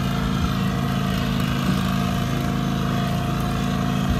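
Boat outboard motor running steadily at trolling speed, an even engine hum.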